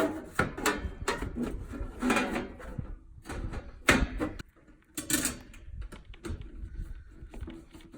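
Irregular knocks, clunks and clicks of handling and moving about, the sharpest a single loud snap about four seconds in.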